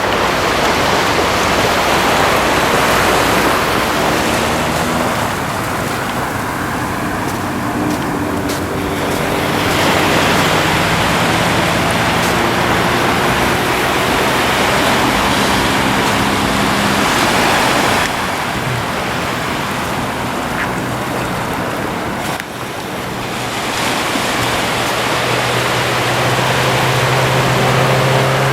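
Ocean surf breaking and washing up the beach, swelling and easing in long surges. A motor's low drone runs underneath and grows stronger near the end.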